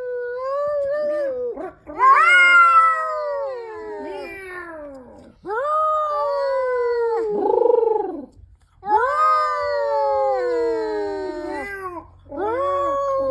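Two domestic cats exchanging long, drawn-out yowls, about five calls in turn, each lasting two to three seconds and falling in pitch.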